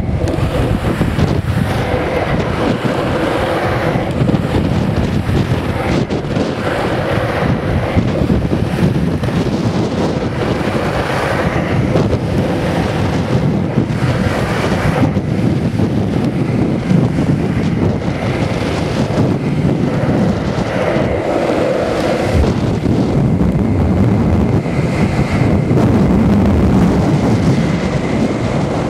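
Wind buffeting the microphone over the steady rumble of skateboard cruiser wheels rolling on asphalt.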